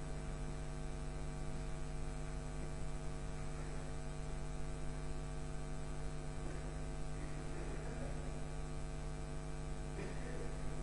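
Steady electrical mains hum, a low buzz that does not change.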